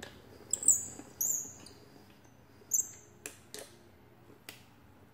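Three short, high-pitched chirps in the first three seconds, followed by a few light clicks.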